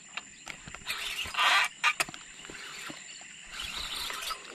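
Handling noise of a spinning rod and reel while a hooked giant snakehead is being played: scattered sharp clicks, a short loud rush of noise about a second and a half in, and softer rustling near the end.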